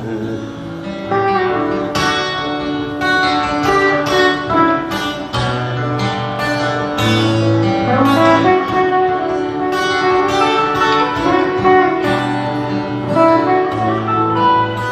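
Acoustic guitar playing an instrumental break between sung verses: a picked melody of quick notes over held low bass notes.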